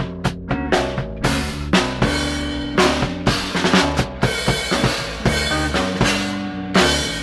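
Live jam-band music: a drum kit with kick, snare and cymbals playing a busy beat of several hits a second, over sustained bass and guitar notes.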